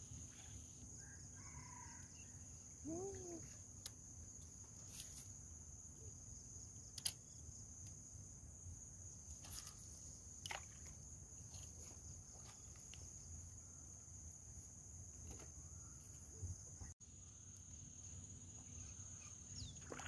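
Faint, steady high-pitched insect drone over quiet outdoor ambience. A few soft clicks and one short rising-and-falling call about three seconds in.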